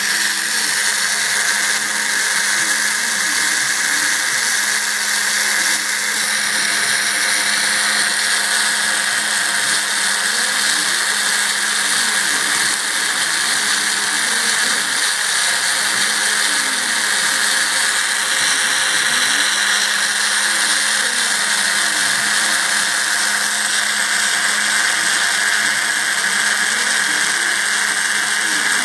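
Homemade CNC router's spindle running steadily with a high whine as its end mill engraves letters into painted wood, with lower whines from the axis motors repeatedly rising and falling in pitch as the cutter moves along the letter paths.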